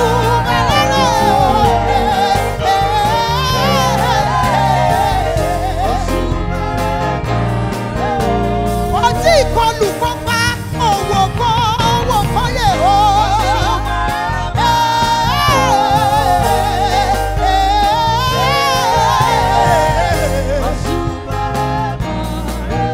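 Woman singing a gospel praise song into a microphone, her voice wavering with heavy vibrato, over a live band with a steady bass and backing singers.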